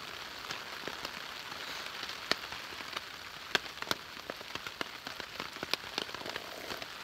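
Rain falling steadily: an even hiss with scattered sharp ticks of drops striking nearby surfaces.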